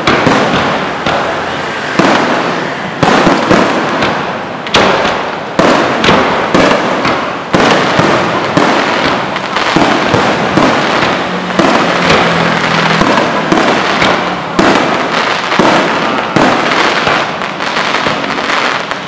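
Aerial fireworks from a truck-mounted, electrically fired display bursting in quick succession: sharp bangs about once a second over continuous crackling.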